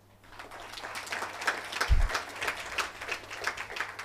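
Audience applauding, starting about a quarter second in and carrying on as a steady patter of many hands. A low thump about two seconds in.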